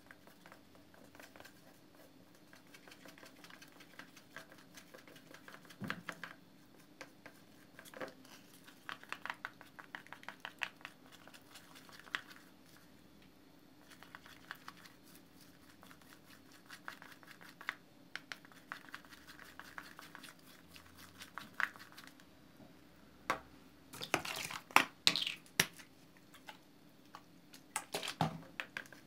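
Slime mixture stirred in a bowl with a plastic stick: a run of small sticky clicks and scrapes against the bowl, louder in bursts near the end.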